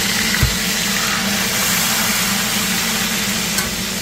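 Fish frying in hot oil in a wok, a steady sizzle, with a low thump about half a second in.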